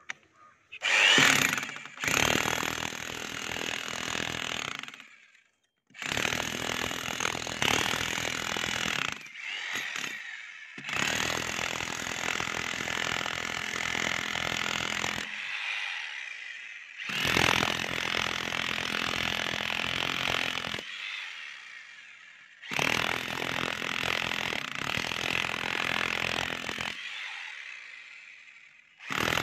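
A 900-watt corded electric demolition hammer driving a pointed chisel bit into a concrete slab to break a hole. It runs in bursts of one to four seconds, stopping and starting about six times with short pauses between them.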